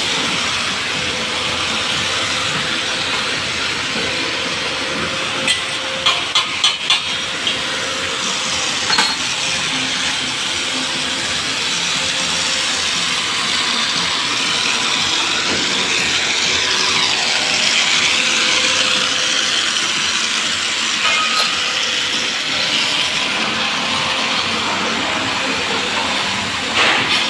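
CNC machine running and cutting metal: a steady hissing machining noise with a faint steady hum, and a few sharp clicks about six to nine seconds in.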